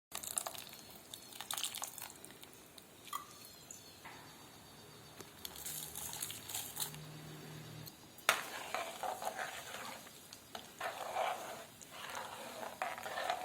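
Quiet kitchen sounds of a metal ladle or spoon clinking and scraping as it stirs a pan of curry, with one sharp clink about eight seconds in.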